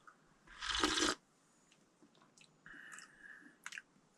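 A single slurping sip of a drink, lasting about half a second, about half a second in. It is followed by faint small clicks and a brief squeak.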